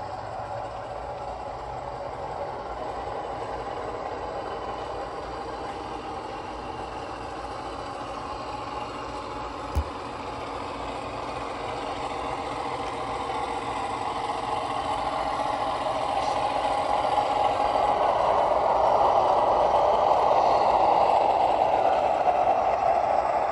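HO scale model train running on the layout track, a steady mechanical rolling and engine sound that grows louder from about halfway through, loudest near the end. A single sharp click a little before halfway.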